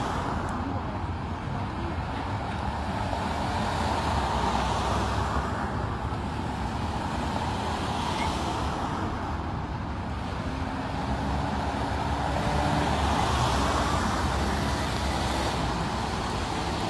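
Road vehicles driving past one after another, the engine and tyre noise swelling and fading as each goes by; a large truck passes close near the end.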